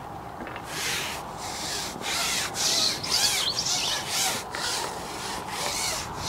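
Carbon fishing pole being slid back while a hooked fish is played, giving a run of short rasping rubbing strokes, about two a second, starting a little under a second in.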